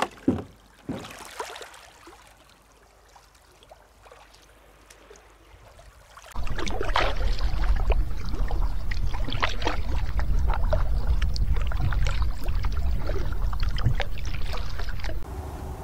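Kayak paddle strokes dipping and splashing in calm, shallow sea water. About six seconds in, the sound jumps to a loud, steady low rush full of small splashes, as picked up by a camera riding on the kayak.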